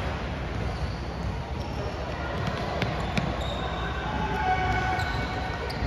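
A basketball bouncing on a gym floor during a game: a few separate sharp bounces over the steady background noise of the gym.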